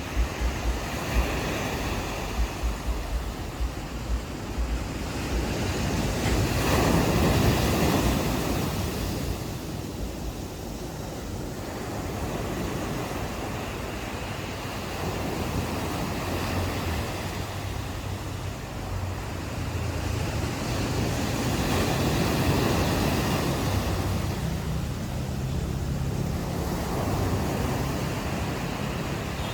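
Ocean waves washing onto a beach, the surf swelling to its loudest about seven seconds in and again later, with wind buffeting the microphone as a low rumble.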